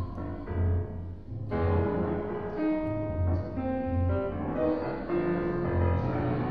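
Grand piano playing contemporary concert music together with a pre-recorded soundtrack, over a low beat that recurs every second or so.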